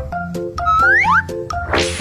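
Playful background music with cartoon-style sound effects: two quick rising pitch glides about a second in, and a rising whoosh near the end.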